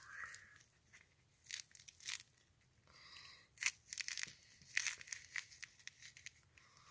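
Orange peel being torn away from the fruit by hand in short, irregular, faint crisp rips.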